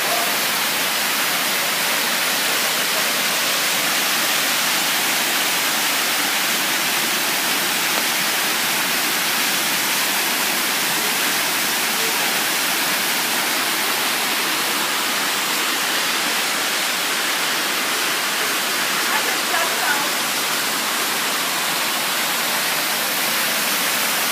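Erin-Ijesha waterfall's water falling, a steady full rushing. Faint voices come in briefly about three-quarters of the way through.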